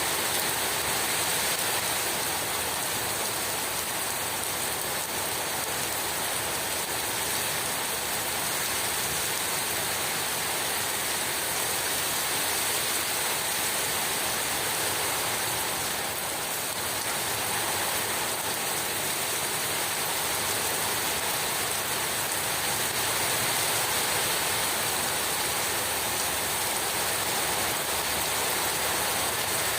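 Heavy rain pouring down: a dense, steady hiss of water with no breaks.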